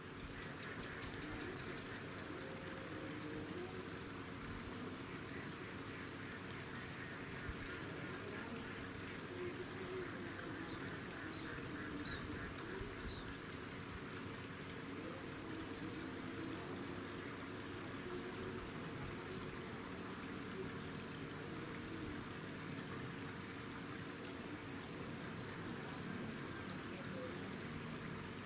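Insects chirping: a steady high-pitched drone, with repeated trills of rapid pulses over it. Each trill lasts one to two seconds, with short breaks between them.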